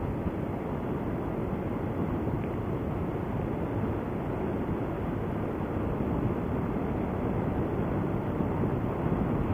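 Steady wind rush and road noise on the microphone while riding a Honda Forza 300 scooter at a constant cruising speed, with no change in throttle.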